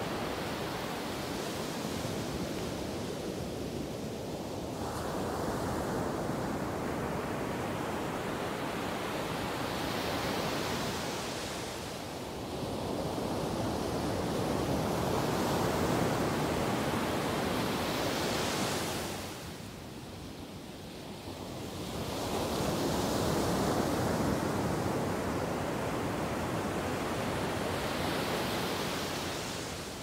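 Ocean waves breaking on a beach: a continuous wash of surf that swells each time a wave crashes, every several seconds, and briefly dies down about two-thirds of the way through before building again.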